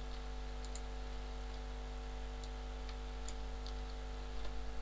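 Faint, scattered clicks of a computer keyboard and mouse, a few a second at most, over a steady low electrical hum.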